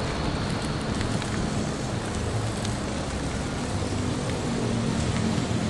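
Motor vehicle engine running steadily: a low hum with road noise over it.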